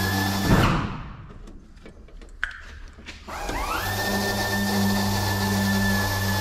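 Handheld power drill running in two bursts: a short one that stops about half a second in, then a longer one that spins up with a rising whine about three seconds in and holds a steady pitch to the end.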